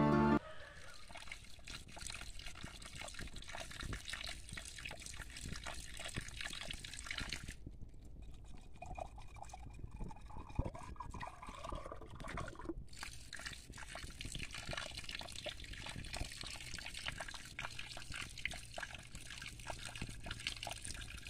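Water trickling and dripping, a steady wash of small ticks and splashes; the hiss thins out for a few seconds around the middle.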